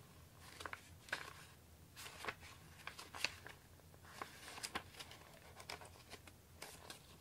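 Pages of an old paperback picture book being turned and handled by hand: a run of soft, crisp paper rustles and flicks, a few every second.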